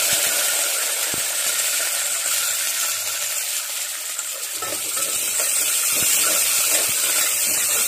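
Sliced onions sizzling in hot oil with tempered mustard and cumin seeds in an aluminium pot, a steady loud hiss. In the second half a metal ladle stirs them, clinking and scraping against the pot.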